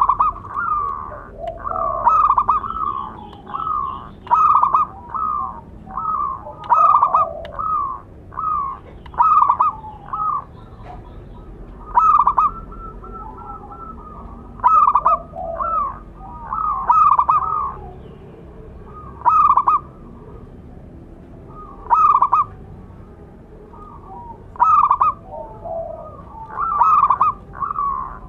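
Zebra dove (perkutut) cooing: a string of short, clear cooing notes, closely packed in the first half and then coming singly or in pairs every couple of seconds.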